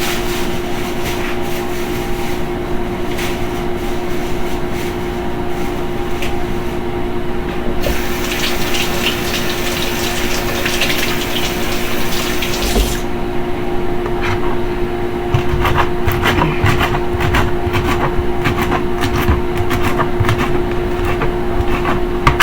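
Kitchen tap running into the sink for about five seconds in the middle, over a steady hum. After the water stops come scattered clicks and knocks of handling.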